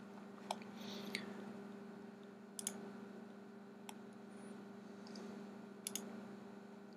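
Computer mouse buttons clicking several times, single clicks and two quick double clicks, as lines are drawn in a 3D modelling program. A faint steady electrical hum sits underneath.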